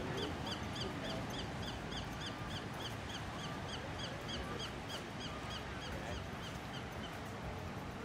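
A bird calling a fast, even series of short high notes, about three or four a second, that fades out near the end, over a steady wash of noise.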